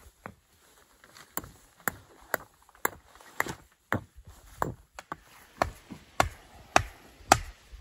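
Ground blind stakes being hammered into the dirt: a steady series of sharp strikes, about two a second, getting louder from about a second and a half in.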